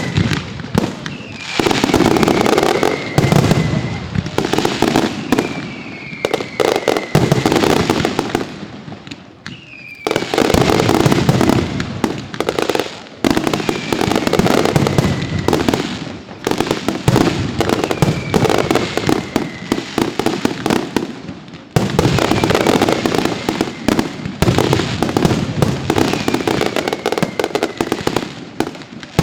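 Professional fireworks display: a dense barrage of bangs and crackling from bursting shells, in waves that ease briefly twice. A short falling whistle cuts through every few seconds.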